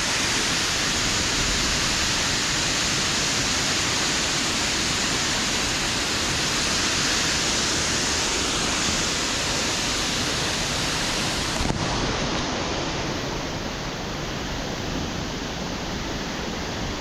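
Waterfall rushing: a steady, very powerful rush of water scraping down an angled rock wall into a splash pool. It eases slightly over the last few seconds.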